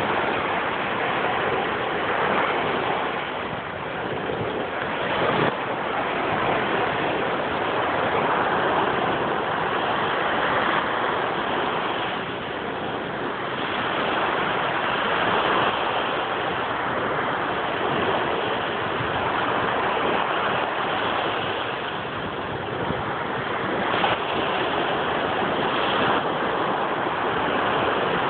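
Small waves breaking and washing up onto a sandy beach: a steady rushing hiss of surf that swells and eases every few seconds.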